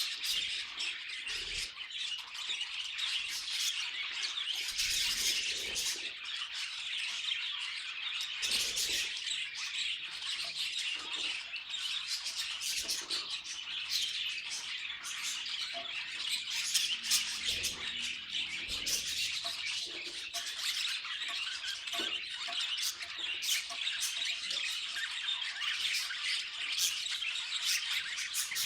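Budgerigars chattering, with continuous fast chirps and squawks without a pause.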